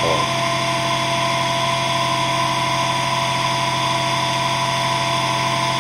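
Electric motor running steadily, spinning a wooden disc set with twelve magnets inside a copper-tube coil. It gives an even hum with several steady higher tones over it, unchanging in pitch and level.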